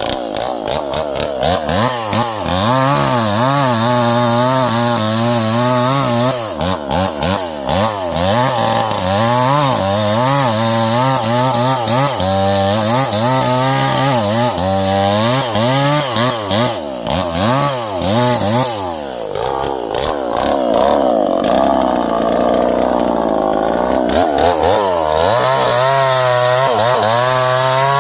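Two-stroke chainsaw cutting through small sengon saplings, its engine pitch swinging up and down over and over as the throttle is worked through each cut, with a steadier, lower-pitched stretch about two-thirds through.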